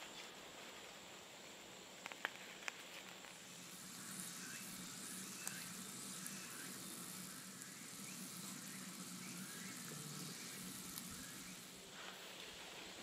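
Grilled mackerel sizzling faintly in a hot cast iron pan over charcoal embers, a little louder from about four seconds in. Two light ticks about two seconds in.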